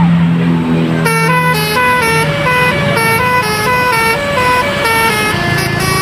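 Basuri telolet musical horn on a tour bus playing a quick tune of short notes that jump up and down in pitch, starting about a second in.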